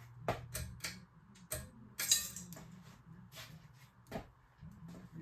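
Ceiling fan pull-chain switch being worked: a run of irregular sharp clicks with the small metal chain clinking, over a low steady hum.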